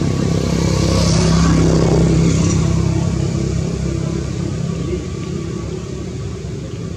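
A motor vehicle passing by, its engine hum and road noise swelling to a peak about one to two seconds in, then slowly fading away.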